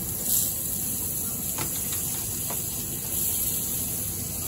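Butter and pancake batter sizzling on a hot electric griddle: a steady hiss, briefly louder just after the start as fresh butter is rubbed onto the hot surface.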